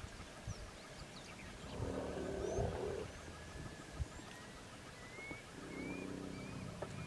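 African elephant calling: a low rumbling call lasting about a second, starting about two seconds in, and a fainter one around six seconds in. Birds chirp and an insect trills steadily behind.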